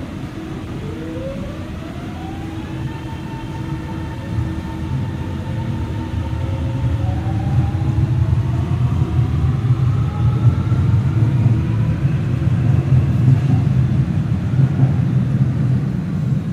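Traction motors and GTO-VVVF inverter of a Siemens-Adtranz A1 (Modula) metro train accelerating away from a station. Several whining tones rise in pitch, some in steps, as it speeds up, while the rumble of the wheels and motors grows louder toward the end.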